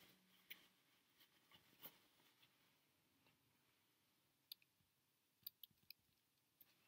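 Near silence: room tone with a few faint, scattered clicks, several close together past the middle.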